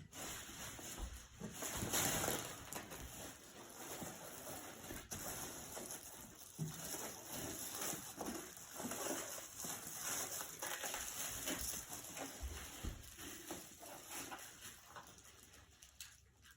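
Faint, irregular rustling and scraping of packaging being handled, with a few soft clicks and knocks.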